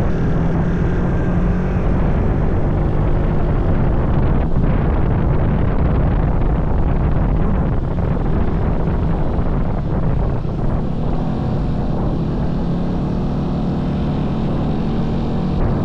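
A vehicle engine droning steadily while on the move, over a continuous rushing noise.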